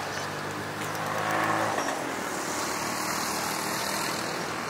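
Road traffic: a motor vehicle's engine hum that swells and then stops about two seconds in, over a steady outdoor background hiss.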